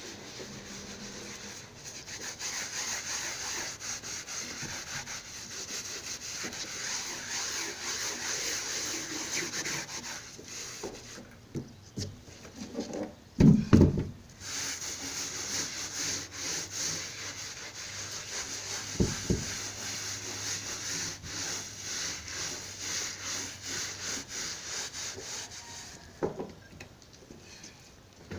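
Carpet covering of a subwoofer cabinet being scrubbed, repeated rubbing strokes in long runs. A loud knock about halfway through and another a few seconds later.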